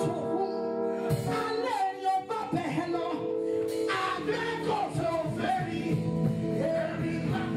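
Live gospel music: a woman sings into a handheld microphone over amplified band accompaniment, with some long held notes.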